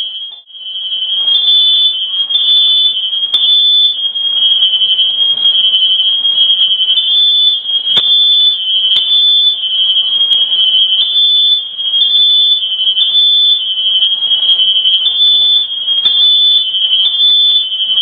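Home fire alarm sounding continuously with a loud, shrill, piercing tone that pulses slightly, set off by smoke from a kitchen stove fire. A few sharp knocks come underneath it, the clearest about eight seconds in.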